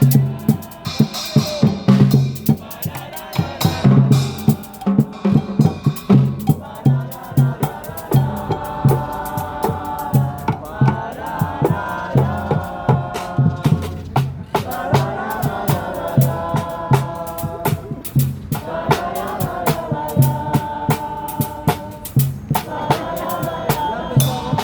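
Trombone-led street brass band playing a tune over a steady drum beat; the horns come in strongly with held notes about eight seconds in.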